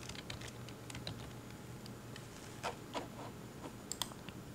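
Faint, scattered clicks of a computer keyboard and mouse as a label is typed in, a few of them louder near the end, over a faint steady low hum.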